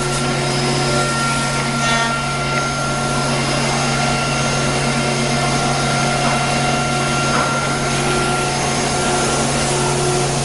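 Workshop machinery running steadily: a constant hum with several steady whining tones over an even whir.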